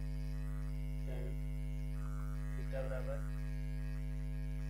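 Steady electrical mains hum with a stack of even overtones, with a few faint short sounds about a second in and around three seconds.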